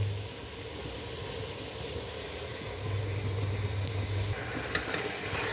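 Jackfruit pieces sizzling quietly in hot oil and masala gravy in an aluminium pressure cooker, with a low hum that comes and goes. Near the end a few sharp clicks as a spoon begins to stir in the pot.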